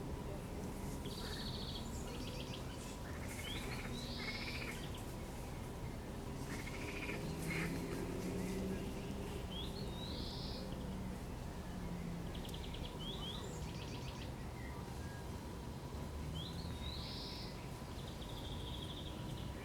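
A songbird singing short phrases outdoors, one clear note returning about every six seconds amid other chirps and rattling notes, over a steady low background.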